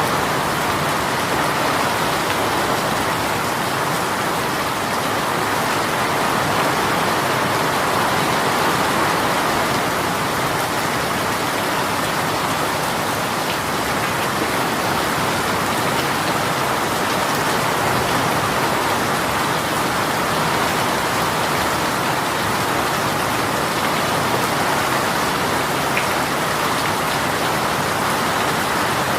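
Heavy rain shower falling steadily, a dense even hiss of rain on surfaces with no letup.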